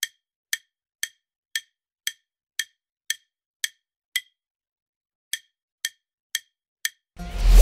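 Quiz countdown-timer sound effect ticking about twice a second, with a pause of about a second partway through, as the on-screen timer runs down. Near the end a short, loud noisy burst marks time running out.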